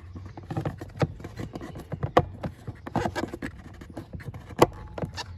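Plastic clicks, taps and light scrapes of a twist-in bulb holder being handled and pushed into the slot of a car tail lamp housing, with a sharper click a little before the end.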